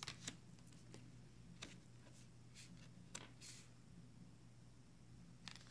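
Near silence: faint, short swishes and taps of oracle cards being picked up and laid down on a wooden table, a handful of times, over a faint low hum.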